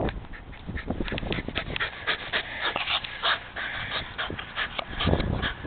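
Rat terrier panting hard and fast close by, with a low buffeting rumble at the start and again about five seconds in.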